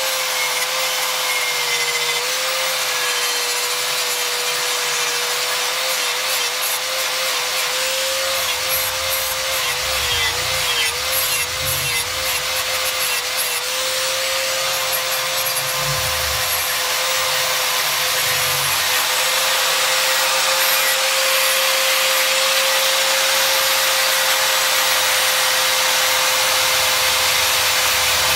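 Handheld angle grinder with an abrasive disc grinding the flat of a steel knife blade: a steady motor whine over a gritty hiss, the pitch wavering a little in the middle as the disc is pressed into the steel.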